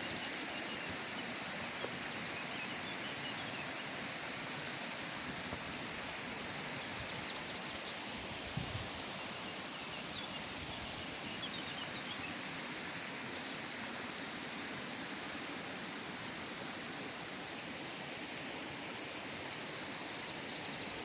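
Steady rushing of a waterfall. Over it, a small bird repeatedly sings a short, high trill, about six times, every four to five seconds.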